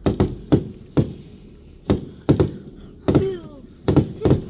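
Fireworks exploding: a run of sharp bangs at irregular intervals, about nine in all, some coming in quick pairs. A brief falling squeal comes about three seconds in.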